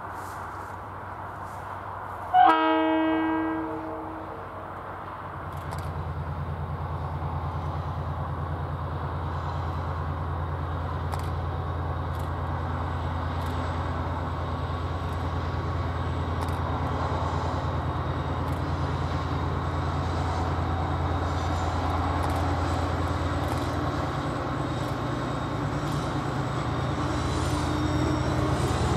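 One short toot from the train about two and a half seconds in, then the DFB diesel locomotive's engine powers up and runs steadily as it hauls the train away.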